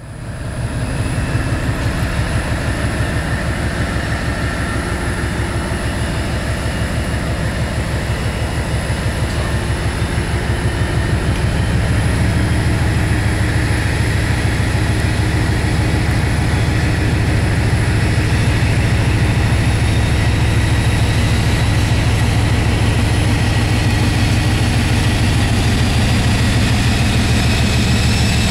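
Class 56 diesel locomotive's Ruston-Paxman 16-cylinder engine running with a steady, fast pulse. It grows louder about twelve seconds in, and a faint high whine climbs slowly in pitch near the end as the engine takes power.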